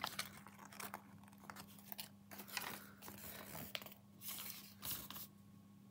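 Faint crinkling and crackling of small plastic and paper packaging handled by hand, in a run of irregular crackles that eases off near the end.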